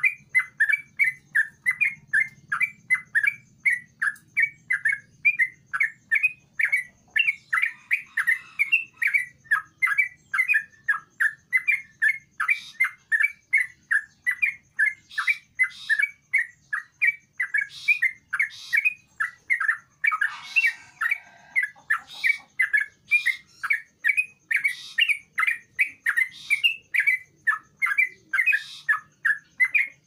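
Yellow-vented bulbul (trucukan) singing in a cage: a fast, unbroken run of short chirping notes, about three a second, with a couple of harsher, scratchier phrases mixed in.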